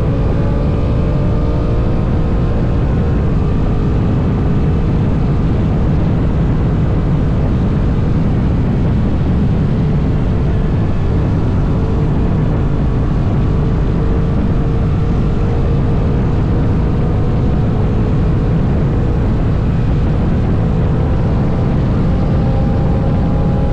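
Heavy wind rush on the microphone over a Honda NT1100's parallel-twin engine running at highway speed. The engine note rises near the end as the bike speeds up.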